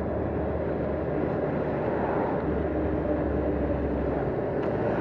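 Honda VFR800's V4 engine running steadily under way, mixed with wind and road noise; its low note eases off about four seconds in.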